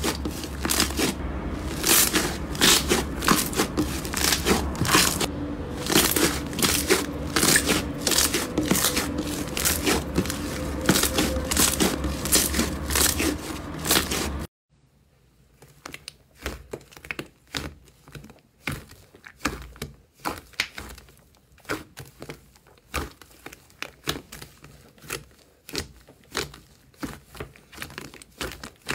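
Pink slime being stretched and folded by hand, giving a dense run of crackles and clicks. About halfway through it cuts to a quieter, more spaced run of small pops and clicks as a hand presses into a bowl of smooth purple slime.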